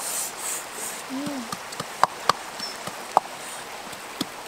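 Wood fire crackling, with a few sharp pops about two and three seconds in. A brief low call rises and falls about a second in.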